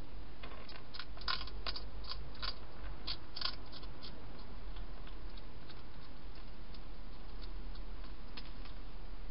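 Wild hedgehog crunching dry food: a quick run of sharp crunches in the first four seconds, then sparser, fainter ones, over a steady low hum.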